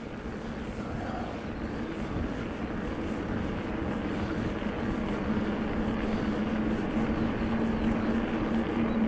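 Rockrider E-ST 900 electric mountain bike on the move: a steady low motor drone over rushing wind and tyre noise, growing gradually louder through the first half.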